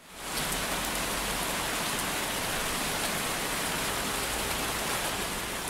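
Rain falling steadily: a dense even hiss with faint scattered drop ticks, fading in over the first half second.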